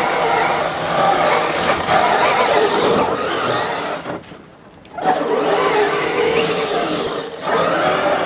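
Electric 1:5 scale RC rally car with a brushless 2200 motor and all-steel gears, whining under throttle as it slides on hard dry dirt. The sound drops away for most of a second about four seconds in, then comes back, with a shorter dip near the end.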